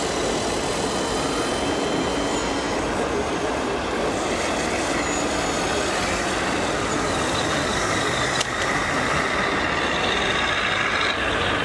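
Radio-controlled model trucks running amid the steady din of a busy exhibition hall, with a single sharp click about eight seconds in.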